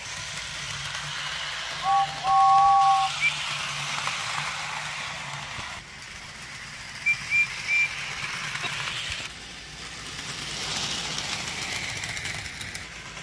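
A two-tone train whistle, a short toot then a longer one, about two seconds in, over a steady hiss. Brief high chirps follow: one just after, three in quick succession near the middle and one more near the end.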